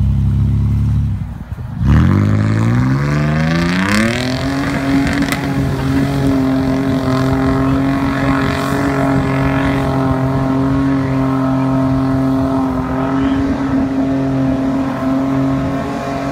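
Lifted third-generation Toyota 4Runner in two-wheel drive revving through a mud hole. About two seconds in, after a brief dip, the engine note climbs, then holds at steady high revs while the spinning rear wheels throw mud and water.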